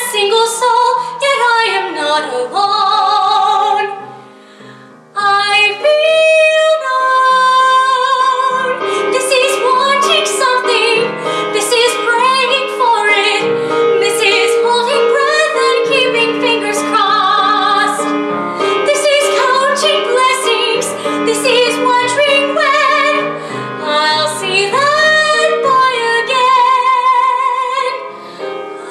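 A young woman singing a theatre song solo, her held notes with a strong vibrato, with a brief break for breath about four seconds in.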